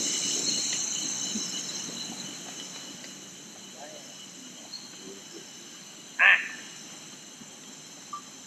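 Steady, high-pitched chorus of rainforest insects that fades over the first few seconds. About six seconds in there is one short, loud, pitched call.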